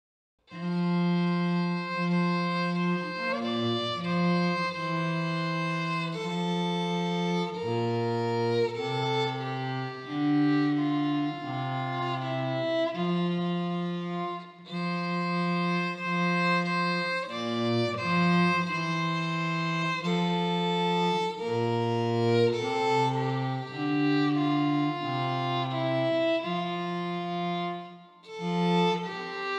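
A violin and a cello playing a slow duet of held notes, the cello carrying a low line beneath the violin's melody. The music begins about half a second in.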